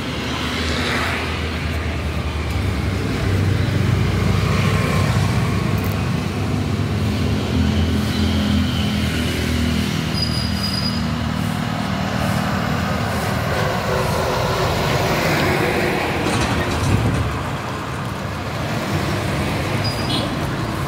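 Street traffic: vehicle engines running and passing close by, with a continuous road rumble that swells and eases.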